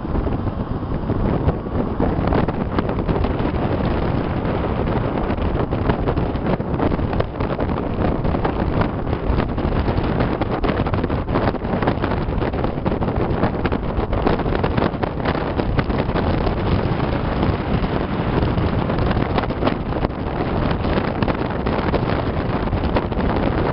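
A 1958 Chevrolet Bel Air with its 283 V8 and Powerglide on the move, heard as steady wind noise buffeting the microphone over the engine and road noise.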